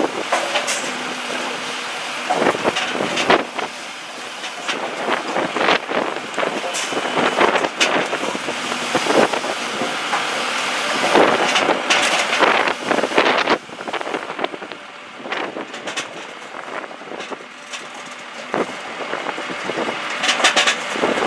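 Posch firewood processing and bagging machinery running with a steady hum, while split firewood clatters and knocks irregularly against wood and metal. The sound turns quieter a little past halfway.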